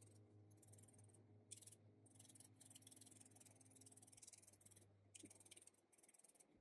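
Faint, scratchy crunching in short runs as a felting needle stabs repeatedly into wool and acrylic yarn, over a low steady hum.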